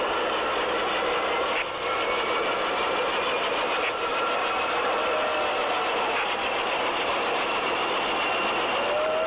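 V-22 Osprey tiltrotor prototype's Allison T406 turboshaft engines running with the proprotors turning in a ground run: a steady rush of noise with a high turbine whine that creeps slightly up in pitch.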